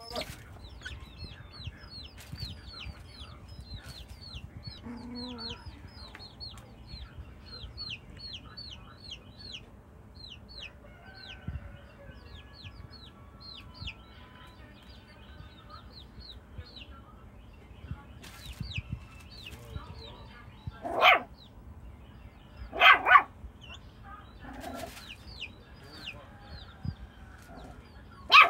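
Young chickens peeping in a wire cage: a steady run of quick, high, falling chirps, thinning out after the first half. In the second half a Jack Russell–Chihuahua puppy barks a few times, short sharp barks that are the loudest sounds.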